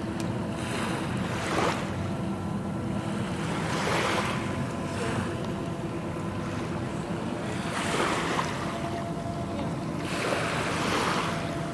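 Small waves washing up on the beach about every three to four seconds, four times, over the steady low drone of a distant ferry's engines across the water.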